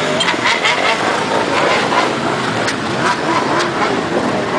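Many motorcycles running together in a steady, loud din of engine noise, with a few short sharp clicks scattered through it.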